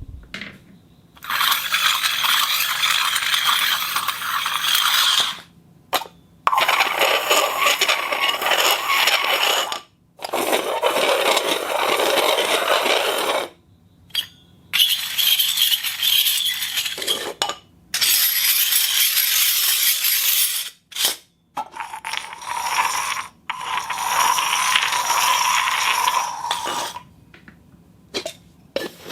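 Objects scraped across a concrete floor in a series of about eight long scrapes, each lasting a few seconds, with short pauses between them. Some strokes carry a steady ringing tone.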